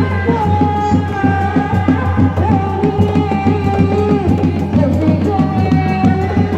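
Sundanese seni reak music: dog-dog frame drums beating a fast, steady rhythm under a high, held melody line that bends slowly in pitch.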